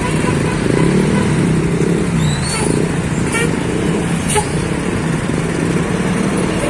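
Street traffic: motor vehicles and motorcycles running nearby, a steady rumble, with three brief sharp clicks about a second apart in the middle.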